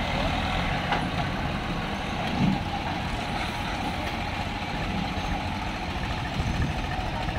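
Swaraj tractor's diesel engine running steadily as the tractor, hitched to a loaded trailer, works its front wheels through a deep mud rut, with a brief louder surge about two and a half seconds in.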